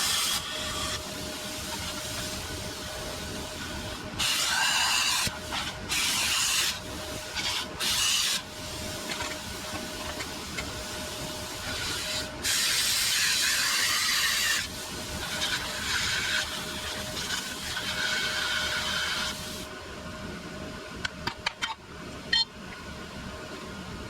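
Plasma cutter cutting steel bumper tubing: a steady air hiss with several louder bursts of cutting noise as the arc bites, the longest lasting about two seconds. The hiss drops near the end, followed by a few sharp clicks.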